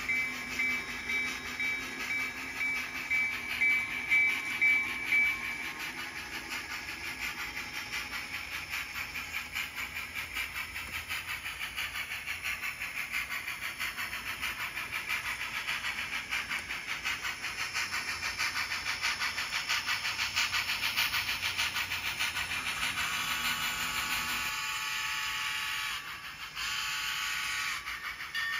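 Model trains running on a layout's track: a steady, rapid clicking of wheels over the rails, with a repeating high ringing tone during the first five seconds or so.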